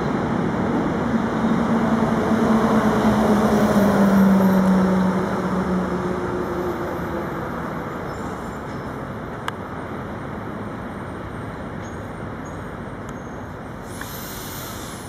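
Street traffic: a vehicle passes, loudest about four seconds in, with a low hum that falls slightly in pitch, then dies down to steady traffic noise. A single sharp click comes about halfway through.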